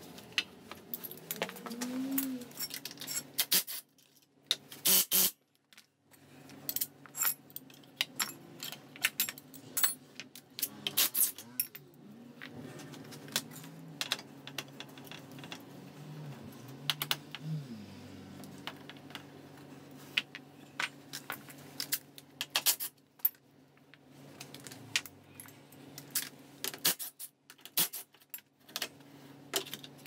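Repeated sharp metallic clinks and rattles of hand tools and loose steel bolts being handled and set down on a concrete floor while a scooter's rear exhaust and swingarm are unbolted, over a faint steady hum.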